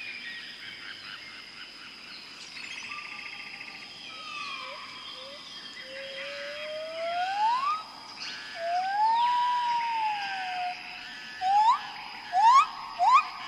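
Amazon rainforest ambience: many birds calling over a steady high insect drone. A slow rising whistle and then a long arching whistle stand out midway, and near the end one bird gives a run of loud, quick rising whistles, four in a row.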